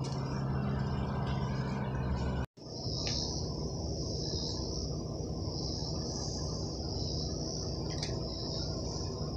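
A steady low engine hum that cuts off suddenly about two and a half seconds in. After it, a high droning of insects that swells and fades every second or two, over a low background rumble.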